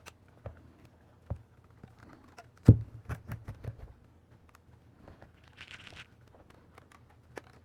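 Hands handling a tablet on a workbench: scattered light clicks and taps, a louder knock nearly three seconds in followed by a quick run of clicks, and a short rustle about six seconds in.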